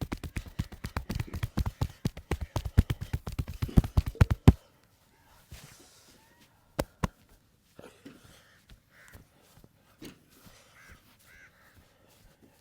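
Rapid percussive massage strokes: hands slapping and chopping on the body in a fast, even run that stops suddenly about four and a half seconds in. After that come a few faint taps and two sharp clicks a little past the middle.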